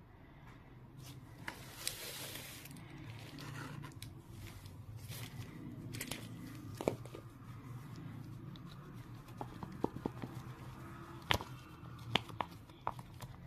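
Folded paper being handled: rustling and crinkling as the paper pieces are moved, with a scatter of sharp clicks and taps, the loudest in the last few seconds.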